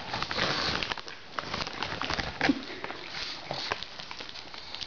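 A pug and chihuahuas moving about on a tiled floor, making scattered light clicks and rustles.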